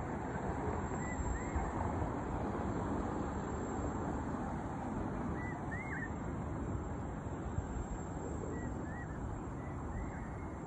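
Steady rushing outdoor noise of wind on the microphone over the distant hum of city traffic, with a few faint short high chirps now and then.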